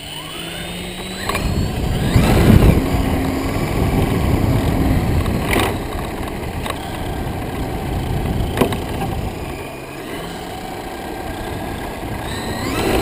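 Radio-controlled scale biplane taking off: its motor and propeller rise in pitch as it throttles up, and prop wash buffets the microphone hard about two seconds in. After that the aircraft runs on steadily as it climbs away, with a few sharp knocks.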